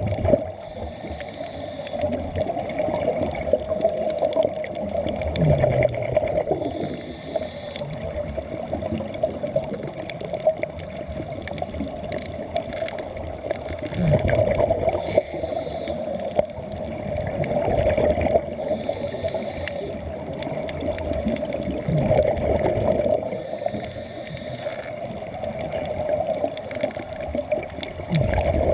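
Muffled underwater bubbling and gurgling of air escaping from sea-walking helmets, over a steady hum, with short bursts of bubbles every few seconds.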